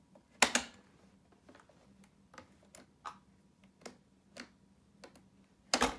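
Clicks and knocks from a Hoover Powerdash Pet carpet cleaner's power switch being worked over and over: a sharp knock about half a second in, scattered lighter clicks, and a louder double knock near the end. No motor sound follows, because the machine will not start.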